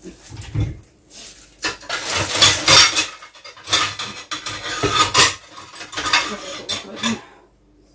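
Plates and dishes clattering and clinking as a plate is pulled out from among the stacked dishes in a kitchen cabinet. It is an irregular run of knocks and clinks that stops about a second before the end.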